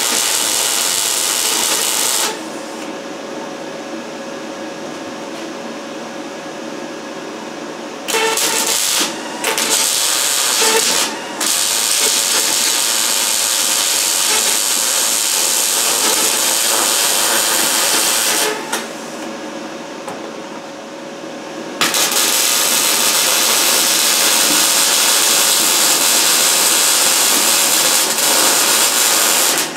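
MIG welder welding door frames in runs of several seconds, a steady hiss. It stops about two seconds in and restarts in short broken bursts around eight seconds, runs again, then pauses for about three seconds roughly two-thirds of the way through before a last long run.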